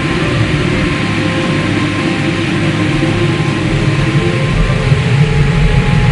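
Loud, steady rumbling roar of tornado wind, a train-like sound effect laid over the animation, growing slightly louder near the end.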